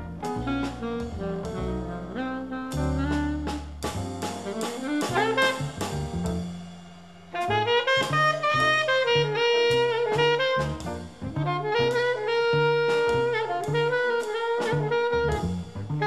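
Studio recording of a jazz sextet with saxophone, trumpet, piano, double bass and drums, a saxophone line over a walking double bass and drums. The sound thins out briefly around six seconds in, then the horns come back in together with long held notes about seven seconds in.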